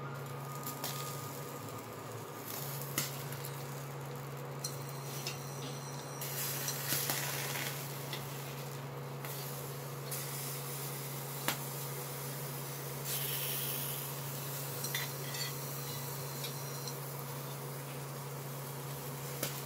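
Stuffed green chillies being laid by hand into a stainless steel pan, with scattered light knocks and clicks against the metal over a soft sizzle of spices roasting. Under it runs the steady hum of an induction cooktop.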